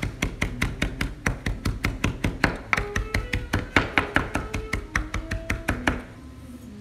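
Chef's knife rapidly chopping fresh cilantro on a wooden cutting board, quick even strokes about six a second as the blade is rocked back and forth, stopping about six seconds in.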